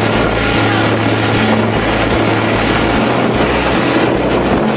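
Fishing boat's engine running with a steady low hum, under wind buffeting the microphone and the rush of foaming water along the hull.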